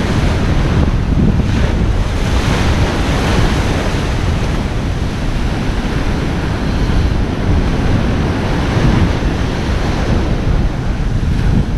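Wind buffeting the microphone over breaking ocean surf, a steady, loud rumbling wash with no separate events.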